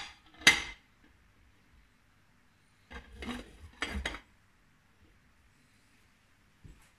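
A white ceramic plate clinking against a glass mixing bowl as it is set on top as a cover. There is one sharp clink about half a second in, then a cluster of clinks and scrapes around three to four seconds in as the plate is settled, and a faint knock near the end.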